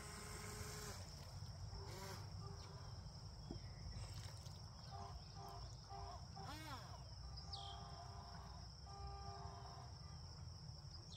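Small electric motor of a Proboat Jet Jam RC jet boat whining faintly at a distance, its pitch holding, dropping, and cutting on and off in short pulses with the throttle. A steady high insect-like buzz and a low rumble run underneath.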